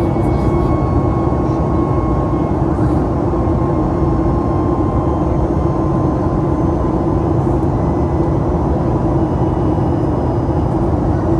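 Cabin noise of a Boeing 737 MAX 8 climbing out after takeoff, heard from a window seat beside the wing: its CFM LEAP-1B turbofan running at climb power with rushing air, a steady, unbroken drone with a low hum.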